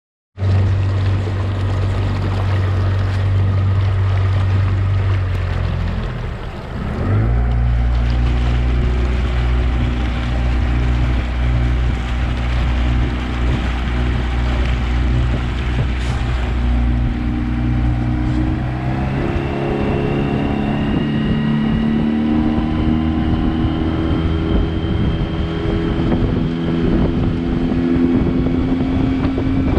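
Outboard motor driving a small dinghy along at speed, with its wake splashing beside the hull. The engine note dips briefly about six seconds in, then climbs slowly in pitch over the second half as it speeds up.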